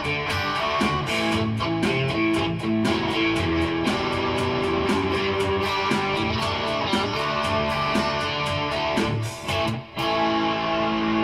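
Electric guitar played through an amplifier in an instrumental rock passage, with a steady, evenly repeating rhythm. Near the end the rhythm drops out for a moment, and then a chord is held and left ringing.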